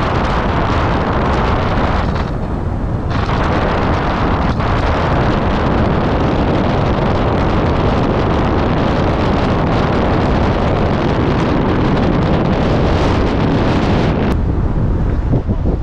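Wind buffeting the microphone of a camera mounted on the roof of a moving car, a loud steady rush with road and tyre noise beneath. The higher part of the rush thins briefly about two seconds in and again near the end.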